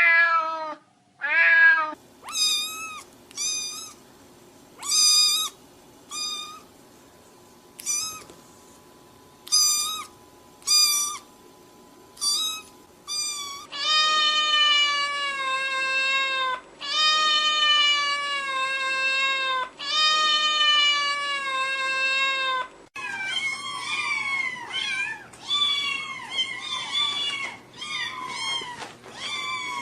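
Several different cats meowing, one recording after another. First comes a string of short, separate meows; then four long, drawn-out meows; then, from about two-thirds of the way in, several cats meowing over one another.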